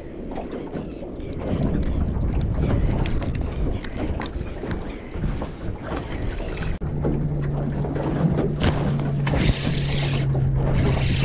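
Wind and water noise around a small open aluminium boat, with knocks and clicks against the hull and a splash about six seconds in as a released fish hits the water. From about seven seconds a steady low hum runs underneath.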